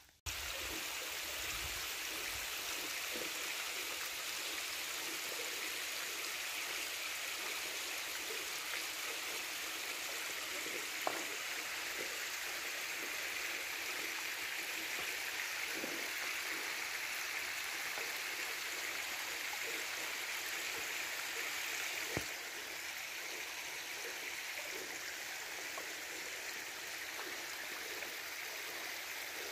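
Steady rush of running water, like a stream, with an even hiss and only a few faint knocks.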